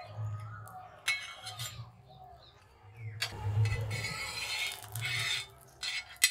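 Ghee sizzling under a sandwich on a hot iron tawa as it is flipped with a steel spatula and more ghee is spooned around it. The sizzle comes in a short spell about a second in and a longer one from about three seconds in, and a metal spoon clinks against the pan a few times near the end.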